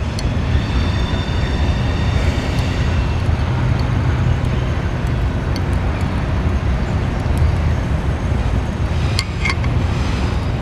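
Oxy-acetylene welding torch burning with a neutral flame, a steady hiss and rumble, while fusion-welding thin mild steel.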